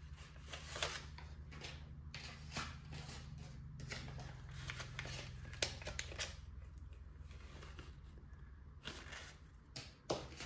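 Paper banknotes being handled and slid into a clear plastic zippered pouch: soft rustling and crinkling broken by scattered light clicks and taps.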